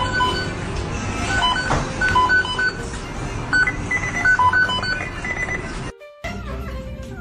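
Background music with short, bright, repeated notes over a steady bed. It cuts out briefly about six seconds in, and a kitten's wavering mews begin just after.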